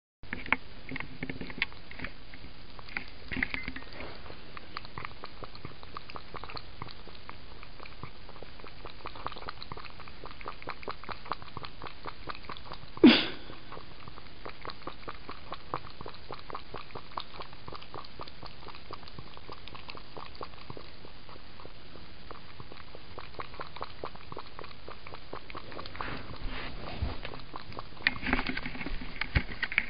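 Cat lapping liquid from a plastic tub, a quick, even run of small wet laps. Near the middle there is one short, much louder sharp sound, and near the end the laps grow louder and busier.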